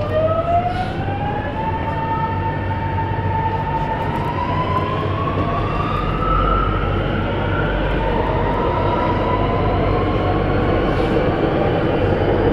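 Alstom Metropolis C751C metro train in motion heard from inside the carriage: the traction motors' whine rises in pitch in several steps as the train gathers speed, over a steady low hum and running noise.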